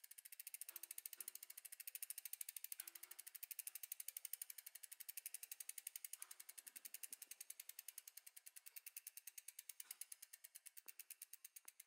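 Faint, rapid, even clicking of a bicycle's freehub ratchet pawls as the wheel freewheels while coasting.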